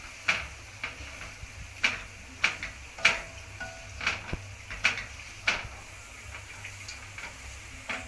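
A spoon knocking and scraping against a frying pan while masala sauce is stirred and heated: sharp clicks every half second or so, thinning out after about five and a half seconds, over faint sizzling.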